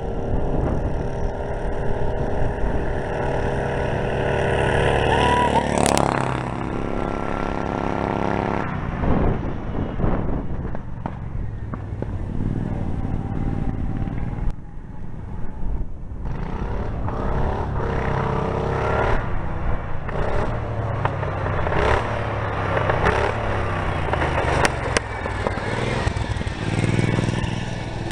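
The small engines of a souped-up riding lawn mower and a 90cc Honda ATV at full throttle, rising in pitch and growing louder as they race closer. They pass close about six seconds in and fade away. In the second half, engine sound comes back, rising and falling in pitch.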